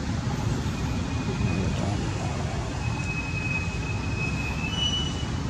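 Wind rumbling and buffeting on the microphone, a steady low roar that flutters in loudness. Faint thin high whistling tones sound over it from about a second in until near the end.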